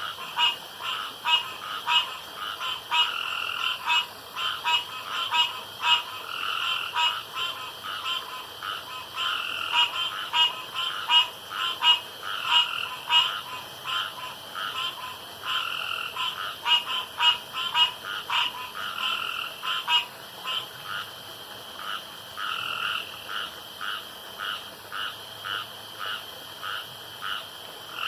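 A chorus of frogs calling: short croaking calls repeated several times a second, with several frogs overlapping. About two-thirds of the way in the chorus thins to a sparser, evenly spaced series of calls.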